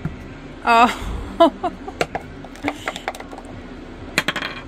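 Dice clicking as they are gathered into a dice cup and rolled onto a wooden tabletop: a few separate sharp clacks, the sharpest pair coming close together near the end.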